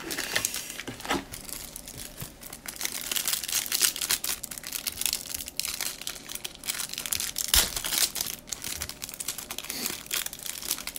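A Panini Prizm basketball trading-card pack wrapper being torn open and crinkled by hand: a dense crackling and rustling, with one sharp, louder crackle about two-thirds of the way through.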